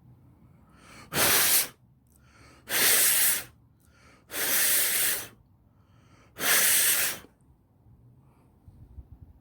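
Aerosol cleaner spray can fired in four short bursts of hissing spray, each half a second to a second long, a second or so apart.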